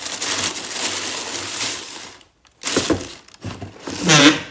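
Tissue paper inside a cardboard shoebox rustling and crinkling as hands dig into it to pull out a sneaker, followed by two shorter handling noises as the shoes are set down.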